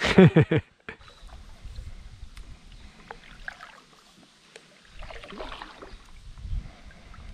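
A short, loud voice sound at the very start. Then a plastic sit-on-top kayak drifting on a creek: water lapping at the hull, with low rumbling on the action-camera microphone in two stretches.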